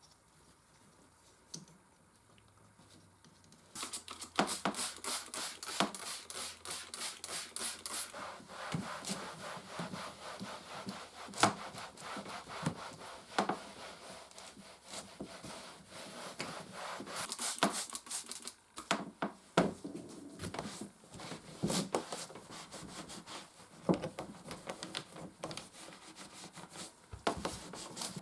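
Brisk, uneven rubbing and scrubbing on a typewriter part being cleaned. It starts about four seconds in, with scattered sharp clicks and knocks.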